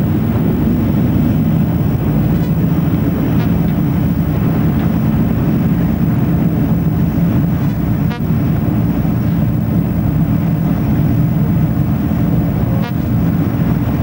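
Steady loud rumble of a warship under way, its machinery running and wind across the deck, with a few faint ticks.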